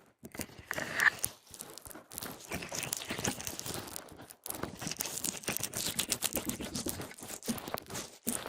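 Close-miked ASMR crinkling and rustling: a dense, continuous run of small crackles and clicks, beginning just after the start.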